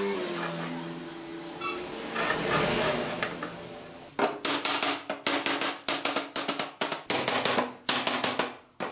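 Curved wooden chair slats and their slotted feet being fitted together: a few seconds of wood shifting and rubbing, then from about four seconds in a quick run of sharp wooden knocks, several a second, as the parts are knocked into place.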